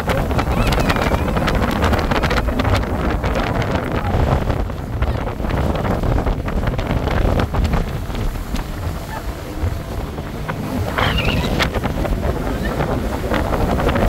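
Wind buffeting the microphone: a heavy, steady low rumble with noise across all pitches. A brief high voice cuts through about eleven seconds in.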